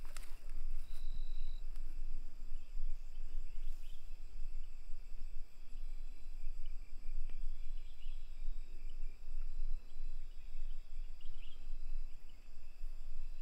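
Evening insect chorus: crickets trilling steadily on several high pitches, over a constant low rumble.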